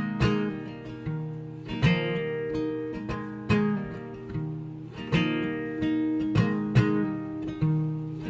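Background music: an acoustic guitar strumming sustained chords, an instrumental gap between the song's sung lines.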